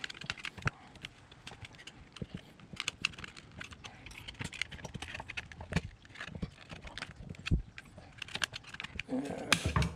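Irregular small clicks and taps of hard plastic as the rear-door roller sunshade cassette of a BMW E39 is handled and pried at with a thin metal pick, to pop a plastic part out of position. There is a louder cluster of clicks near the end.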